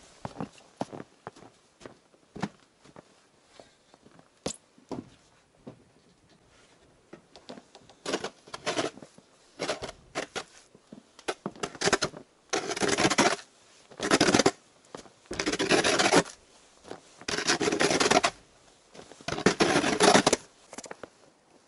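Boots crunching through snow, then a snow shovel scraping and pushing snow in a run of strokes, one every second or two, from about eight seconds in, growing louder toward the end.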